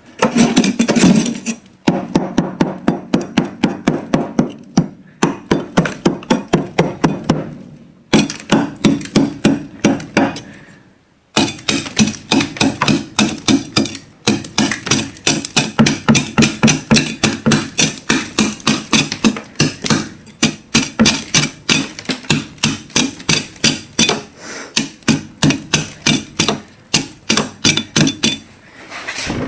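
A scraper chipping and scraping thick, hard frost off the inside of a freezer in quick repeated strikes, about five a second, broken by a few short pauses.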